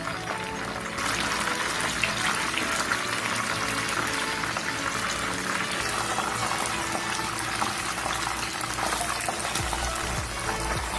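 Chicken quarters deep-frying in hot oil: a dense crackling sizzle that gets louder about a second in, with background music underneath.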